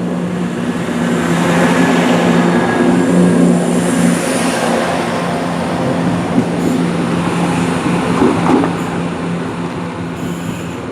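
London Midland Class 172 Turbostar diesel multiple unit pulling out of the platform, its underfloor diesel engines humming steadily over the rush of wheels on rail. It is loudest a few seconds in and eases off toward the end.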